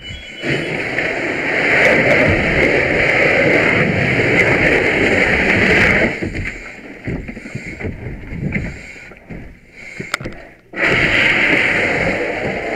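Fire hose nozzle flowing water, a loud steady rush of spray that starts abruptly, runs about six seconds, shuts off for several seconds, then opens again near the end.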